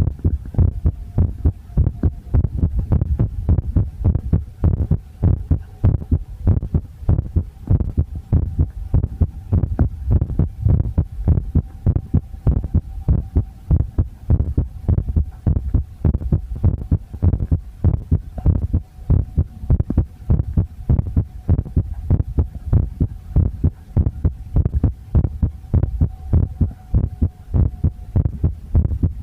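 Human heartbeat picked up close to the chest: a fast, even run of low thumps, with a faint steady hum beneath.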